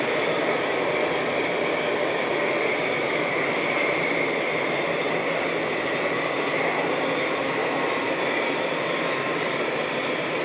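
Budapest Metro Line M4 train running at speed through a tunnel: a steady rumble of wheels on rail with a faint high whine over it.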